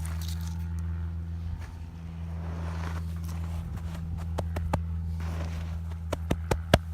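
Steady low motor hum, with dirt scraped and tipped into a hole, then a run of sharp knocks near the end.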